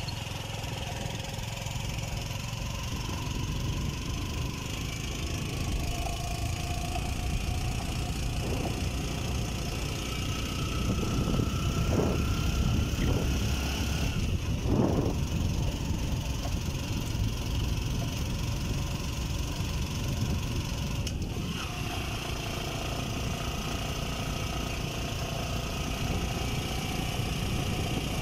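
Motorcycle engine running steadily on the move, with a few brief swells in the sound around the middle.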